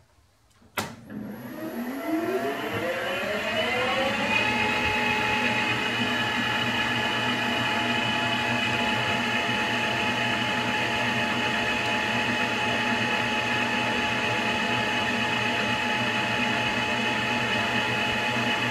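A click, then a Victor metal lathe starts: its three-phase motor, fed by an inverter at 100 Hz, brings the headstock gears up to speed with a whine that rises in pitch for about three seconds, then runs steadily with the spindle at about 710 RPM in the 700 RPM gear.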